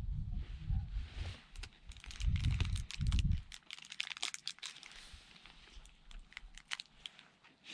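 Wind buffeting a handheld action camera's microphone in uneven gusts for about three and a half seconds. A quieter run of small crackling clicks follows.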